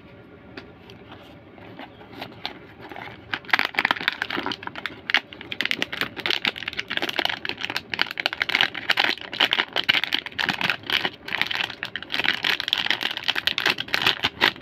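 Hands handling small objects: irregular, rapid clicks and crinkling rustles, sparse at first and becoming dense about three and a half seconds in.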